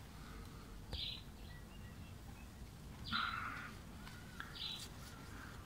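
Birds calling: three short calls spread across the few seconds, with faint thin chirps between them.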